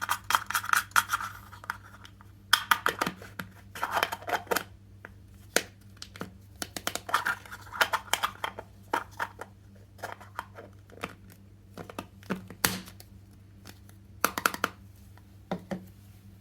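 Hands unpacking a toy kitchen set: scratchy rustling and tearing of packaging with small clicks, in irregular bursts broken by short pauses.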